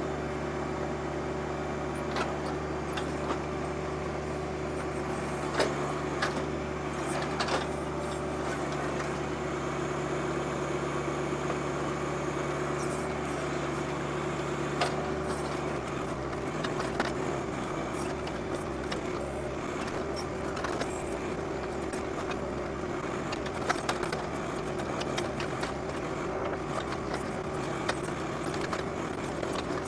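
Diesel engines of a John Deere 2025R and a Massey Ferguson 1740 compact tractor running steadily while their backhoes work a stump out, with scattered knocks and clicks from the work. About halfway through, the low engine note changes.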